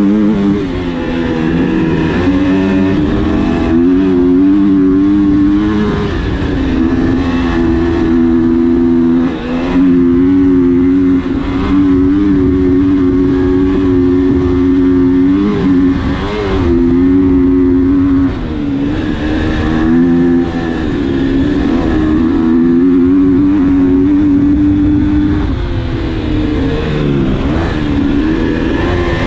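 Husqvarna motocross bike's engine heard close up from on board, running hard at high revs. Several times the pitch drops briefly and climbs again as the throttle is shut and reopened.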